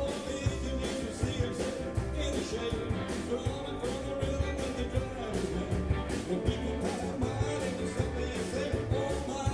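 Electric blues band playing live: electric lead guitar, electric bass, Korg keyboard and drum kit, with drum hits keeping a steady beat under sustained keyboard and guitar notes.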